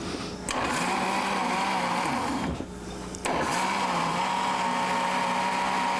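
Countertop blender motor running, blending a bean, egg and oil cake batter until smooth. It cuts out briefly about two and a half seconds in, then starts again and runs steadily.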